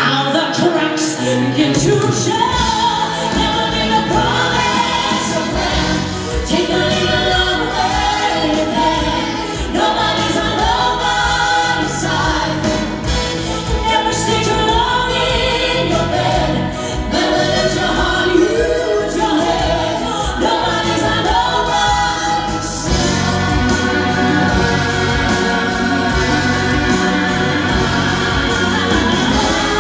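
A woman singing a musical-theatre rock song into a microphone, backed by a live band with drums and percussion; the band grows fuller about two thirds of the way through.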